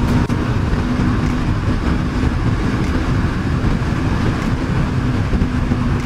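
Riding sound from a KTM RC 390: heavy wind buffeting the camera mic over the single-cylinder engine running steadily at cruising speed.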